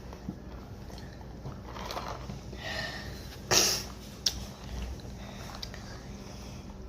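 A person breathing and sniffing, with a sharp, loud breath about three and a half seconds in and a small click soon after, over a steady low hum.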